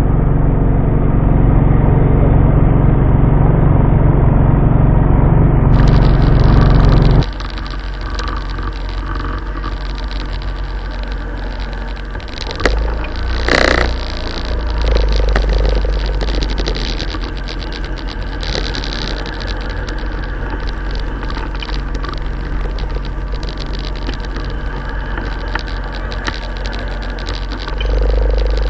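Motorcycle engine running steadily at low riding speed, with wind rumble on the bike-mounted microphone. About seven seconds in the sound abruptly becomes quieter and less boomy, and there is a single sharp knock about halfway through.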